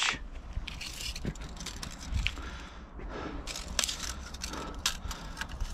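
Steel tape measure being drawn out and handled, with scattered light clicks and scrapes over a low rumble.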